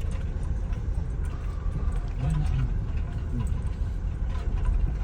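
Toyota Innova driving, its engine and road noise making a steady low rumble.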